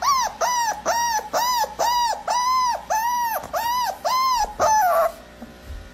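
Puppy crying in a fast, even string of short high whines, about three a second, each rising and falling in pitch, ending with a falling cry about five seconds in.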